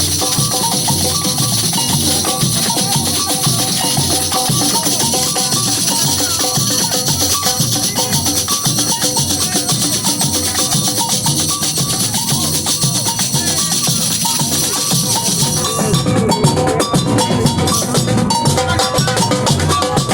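Samba batería, a percussion ensemble, playing a driving rhythm on drums with shakers hissing on top. About 16 seconds in the shaker hiss drops away and the drums carry on.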